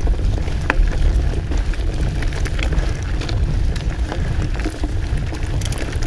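Mountain bike rolling over a gravel track: tyres crunching on loose stones, with scattered clicks and rattles, over a steady low rumble of wind on the camera's microphone.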